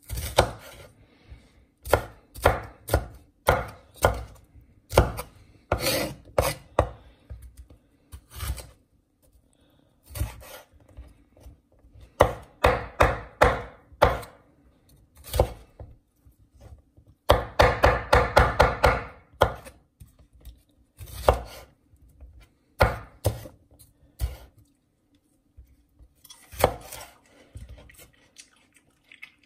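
Kitchen knife chopping vegetables: uneven single chops, with a quick run of rapid strokes a little past halfway.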